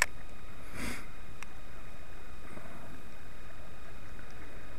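Steady low rumble of river water and air moving around a drifting kayak, picked up by a camera at its bow. There is a click at the start and a short breathy hiss about a second in.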